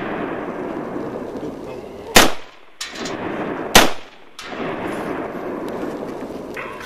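Two shots from an AR-15-style scoped rifle, each a sharp crack with a short decay. The first comes about two seconds in and the second about a second and a half later. A steady hiss runs between the shots.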